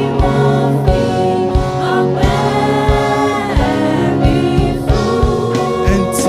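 Live gospel praise music: a choir singing held notes over a band with a steady drum beat.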